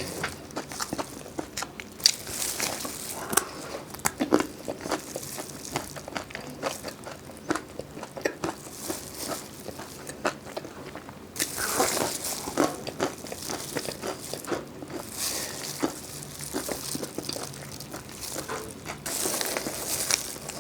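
Close-miked eating: biting and chewing crisp food, a steady run of small crunches and clicks, with louder crackly stretches about halfway through and again near the end.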